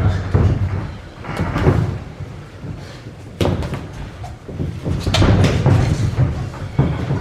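Boxing gloves landing punches during sparring: a series of irregular thuds and slaps, several coming close together in the second half.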